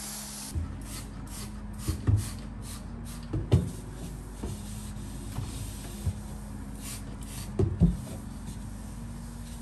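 A steam mop's hiss cuts off just after the start. Then a cloth rubs a glass hob in quick back-and-forth strokes, with a few dull knocks between the runs of wiping.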